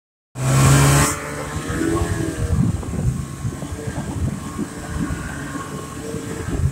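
Snowmobile engine running hard, loudest with a burst of hiss in the first second, its pitch rising and falling with the throttle, over repeated knocks and thumps as the sled bounces along a rough snow track.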